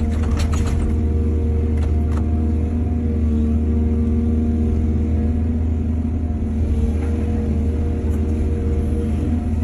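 Heavy diesel engine of an excavator loading soil onto trucks, running steadily, with a few short knocks in the first two seconds.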